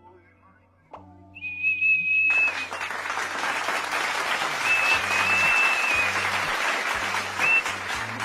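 A small plastic whistle held in a dog's mouth gives a steady shrill tone for about a second as a finger presses the dog's nose, then sounds again in shorter toots around five and seven seconds in. From about two seconds in a loud applause-like noise runs under it, with background music throughout.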